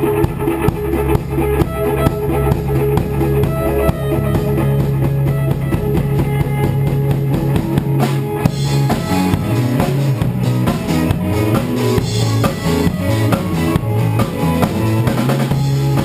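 Live band playing: drum kit with a steady bass-drum beat, and guitar over a low sustained bass part that turns choppier about halfway through.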